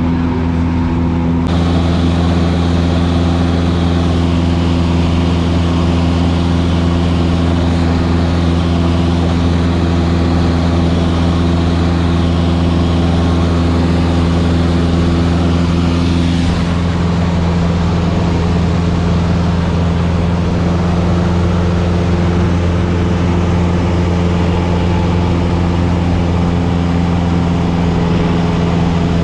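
Cessna 172's piston engine and propeller running steadily in flight, with a slight change in tone about two-thirds of the way through.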